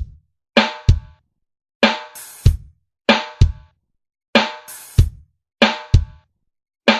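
Music: a drum kit playing stop-start hits, each group a snare and cymbal crash followed by a bass drum kick, about every second and a quarter, with short silences between.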